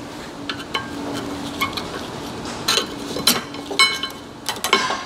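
Metal clinks and scrapes as a flat screwdriver pries worn brake pads out of the caliper bracket, a string of sharp knocks, a few of them ringing briefly like struck steel.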